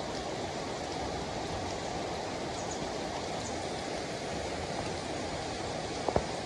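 Steady rain falling, an even rushing hiss with no break. About six seconds in there are two short sharp knocks, close together.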